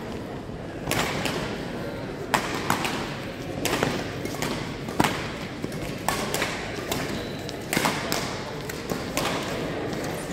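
Badminton rackets hitting a shuttlecock during a doubles rally: sharp pops roughly once a second, echoing in a large sports hall.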